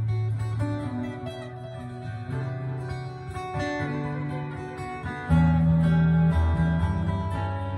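Acoustic guitar playing an instrumental passage: picked notes over low, held bass notes, with a louder low note coming in about five seconds in.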